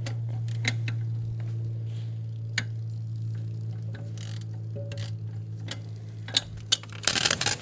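Hand ratchet clicking in short runs as bolts are worked loose on an engine, with scattered metal tool clicks over a steady low hum, and a louder clatter near the end.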